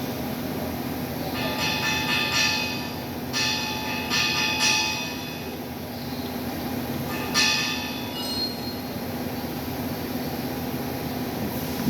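Steady machine hum with three bursts of high-pitched metallic squealing, each lasting about one to one and a half seconds.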